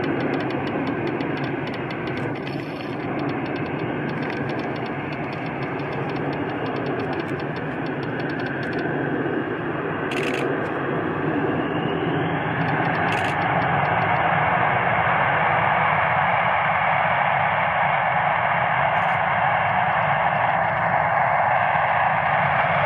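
Swiss Air Force F/A-18 Hornet's two General Electric F404 turbofan engines running on the runway. The steady jet noise grows louder and higher about halfway through as the engines spool up to takeoff power and the jet starts its takeoff roll.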